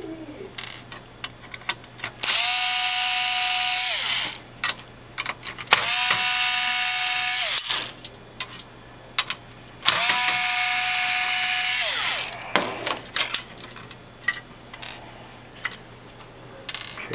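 Cordless electric screwdriver running three times, about two seconds each, spinning up and winding down, as it backs Phillips screws out of a circuit board's metal chassis. Small clicks and rattles of screws and metal fall between the runs.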